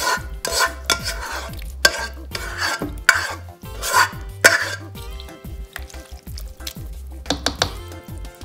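A black kitchen spoon scraping thick, wet macaroni-and-cheese mixture out of a pot into a slow cooker. It makes a run of squelchy scrapes and plops about every half second, pauses, then scrapes twice more near the end.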